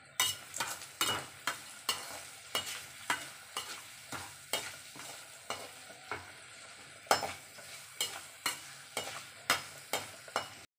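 Perforated steel ladle scraping and clacking against a stainless steel kadai as chopped onions are sautéed in hot oil, with a light frying sizzle underneath. The strokes come irregularly, about two a second.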